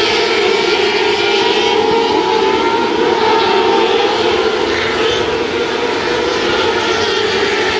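A pack of 600cc wingless micro sprint cars racing, their motorcycle engines at high revs in a loud, steady mix of overlapping engine notes.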